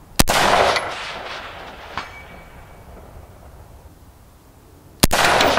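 Two rifle shots from an AR-15 with a 24-inch .223 Wylde barrel, about five seconds apart, each with a rolling echo that dies away over about a second. About 1.8 seconds after the first shot comes a faint short ring: the bullet striking the steel target 455 yards downrange.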